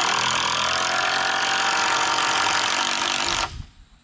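Power drill driving a screw into a wooden 2x6 framing beam, running steadily under load, then stopping suddenly about three and a half seconds in.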